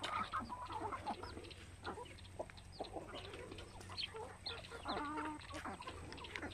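A mixed flock of free-range heritage chickens clucking as they forage, with many short scattered calls and one longer drawn-out call about five seconds in.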